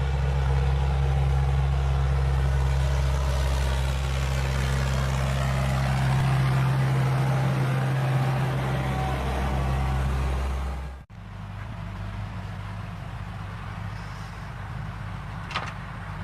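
Diesel engine of a forestry forwarder running steadily while it travels loaded. About eleven seconds in the sound cuts off abruptly and gives way to a quieter engine sound.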